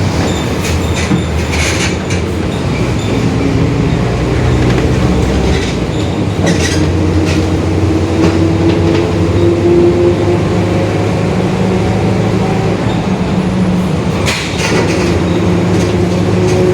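Mercedes-Benz OF-1721 city bus under way, its four-cylinder diesel running steadily. Over it is a droning whine from the differential that rises slowly in pitch as the bus gathers speed, fades, then comes back near the end. A few short rattles or knocks sound over bumps.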